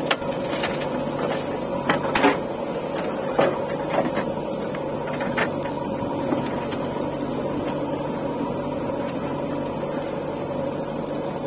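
JCB 3DX backhoe loader's diesel engine running steadily as the backhoe arm works, with several sharp knocks and clanks in the first half from the bucket and soil.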